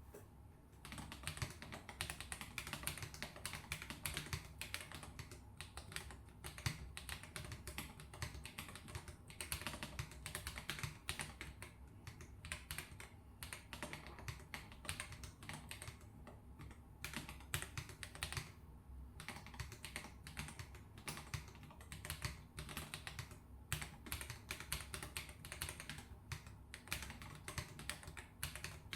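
Typing on a Charybdis Nano wireless split keyboard with linear roller switches: a fast, irregular stream of key clicks and clacks, with a few short pauses.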